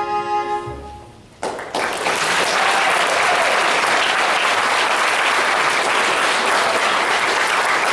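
A piece of music ends on a held chord that fades away, then audience applause starts suddenly about a second and a half in and keeps going at a steady level.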